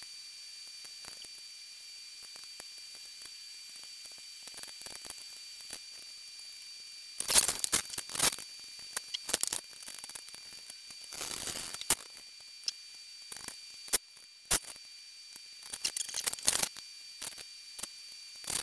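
A small metal pick scraping tacky, packed grease out of the threads of a lathe's lead screw. Quiet for the first several seconds, then irregular scratchy scrapes and sharp ticks in short clusters.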